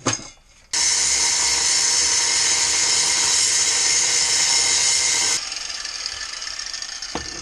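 Angle grinder starting about a second in and grinding into steel with a loud, high whine for about four and a half seconds. It then drops to a quieter, fading spin as the disc winds down.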